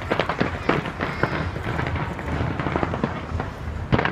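Fireworks display going off: a rapid, irregular run of bangs and crackles over a steady low rumble, with a dense cluster of bangs near the end.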